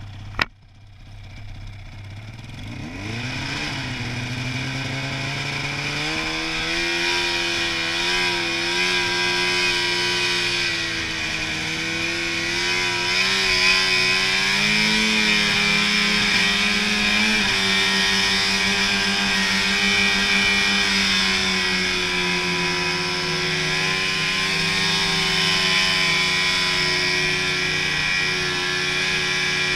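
Arctic Cat snowmobile engine pulling away: a sharp click just after the start, then the engine rises from a low idle about three seconds in and runs steadily under throttle, its pitch shifting up and down a few times.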